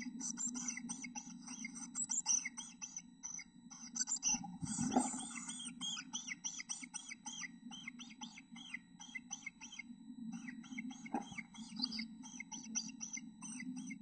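Black-capped chickadee nestlings begging to be fed: a rapid, continuous run of high-pitched chirps, over a low steady hum. There are two dull thumps, about five and eleven seconds in.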